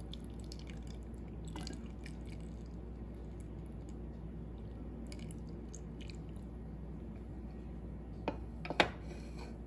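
Faint handling sounds while a marinade is being prepared: soft wet rustles and small ticks over a steady low hum, then two sharp clinks close together near the end.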